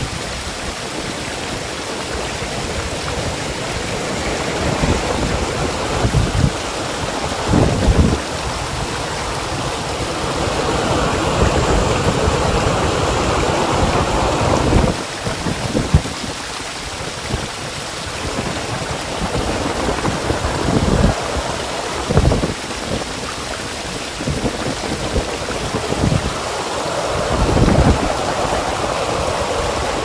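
Muddy flash-flood water rushing and churning down a rocky desert slope in a steady roar, with irregular low gusts of wind buffeting the microphone.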